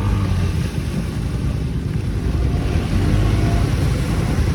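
Off-road vehicle engine running steadily, with wind buffeting the microphone.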